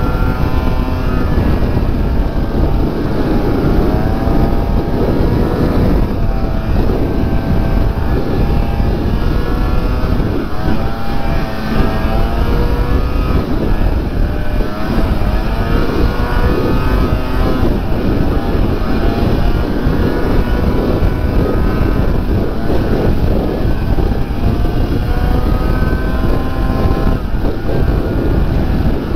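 Snowmobile engine running under way, its pitch rising and falling again and again as the throttle is worked, over a steady rush of wind and track noise.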